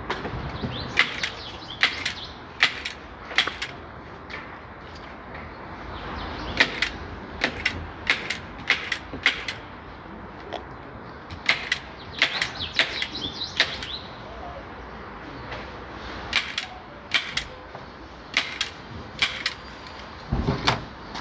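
Upholstery staple gun firing staples along the edge of a fabric-covered sofa back panel: about twenty sharp snaps at uneven intervals, some in quick runs of two to four.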